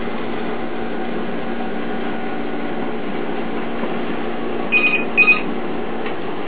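Steady low hum, then two short high electronic beeps of the same pitch about five seconds in: a telephone starting to ring.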